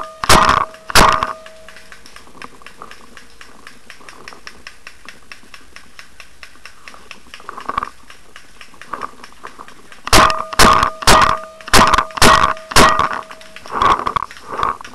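Paintball marker firing: two sharp shots just after the start, then a run of about nine or ten shots, roughly two a second, from about ten seconds in to near the end. A steady tone sounds along with the firing.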